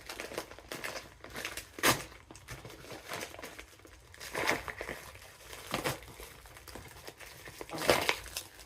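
A mailed package being opened by hand: its packaging crinkles and rustles irregularly, with a few louder sharp crackles, the strongest about two seconds in and near the end.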